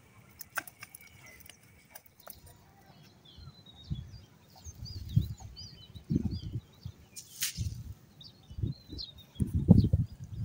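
Birds chirping in the background of an open rural pond-side field, with irregular low rumbling bumps on the microphone starting about four seconds in and growing louder toward the end.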